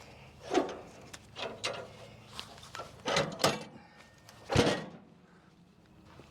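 Irregular knocks and scrapes of wood being handled, about six in a few seconds, the loudest a sharp knock about four and a half seconds in.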